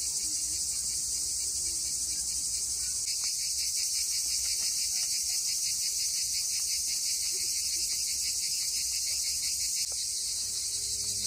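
Steady chorus of insects chirring high-pitched, with a fast pulsing texture.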